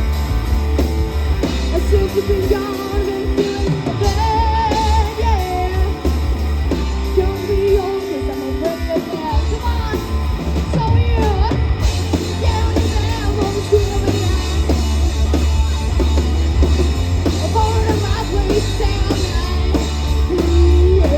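Live rock band playing with a singing voice: electric guitar, bass guitar and drum kit.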